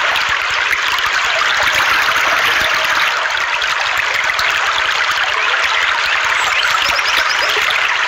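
Shallow rocky stream flowing, water rippling steadily over and around boulders.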